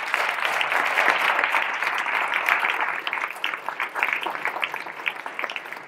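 Audience applauding, dying down in the second half.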